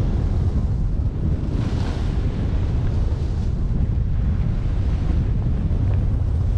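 Wind rushing over the microphone of a camera worn by a skier moving down a groomed run: a steady low rumble, with a brief brighter hiss about two seconds in.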